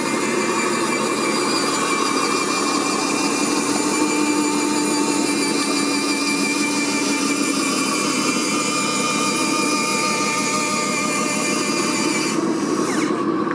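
Steady whine of small electric motors and gearing, as from RC model construction machines running. The high part of the sound drops away about 12 seconds in.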